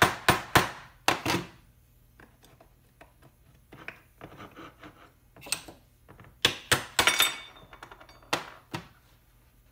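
A hammer tapping the back plate of a Honda Mitsuba starter motor to loosen it: about five sharp knocks in the first second and a half. The loosened end plate and housing are then handled on the metal bench, with a few knocks and a short metallic scrape from about five to eight and a half seconds in.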